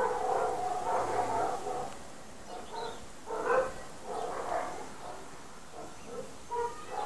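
A dog whining: one long whine that fades out about two seconds in, then a few shorter whines.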